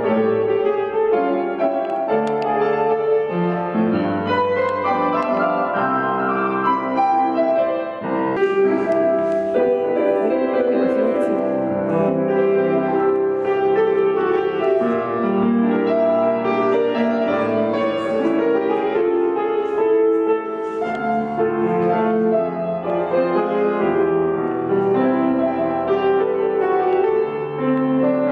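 Grand piano being played, a continuous flowing piece of melody over chords.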